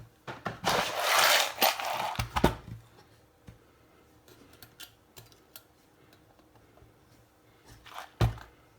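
Workbench handling noise: a scraping, rustling burst lasting about two seconds, then a few small clicks and a sharper knock near the end.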